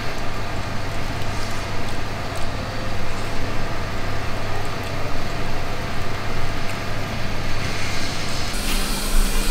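Steady low machine hum and room noise, like a dining room's ventilation or air conditioning running; near the end a second, slightly higher hum comes in.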